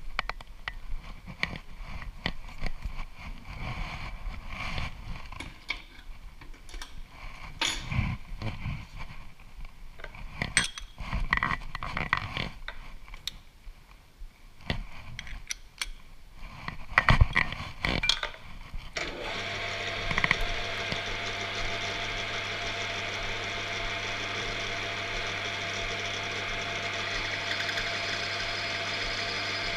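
Scattered metal clinks and knocks of tooling being set on a metal lathe's quick-change tool post. About two-thirds of the way through, the lathe is switched on and runs with a steady hum.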